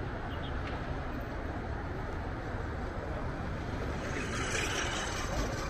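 Steady street traffic noise, with a louder hiss of a vehicle passing about four seconds in.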